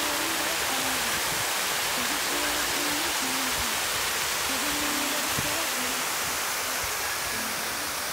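Park fountain's water jets spraying and splashing into its pool: a steady rushing of falling water, with faint music underneath.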